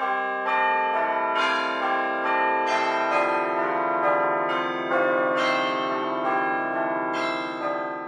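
Church bells ringing: a run of overlapping strikes, a new note every half second to a second, each ringing on under the next. The ringing fades out near the end.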